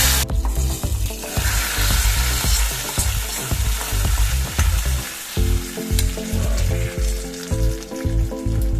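Hot tempering oil carrying mustard seeds, cumin, dried red chillies, garlic and curry leaves hits a pot of tomato rasam and sizzles sharply at the start, then keeps sizzling while the pan is scraped out and the rasam stirred with a ladle. Background music with a steady beat plays underneath.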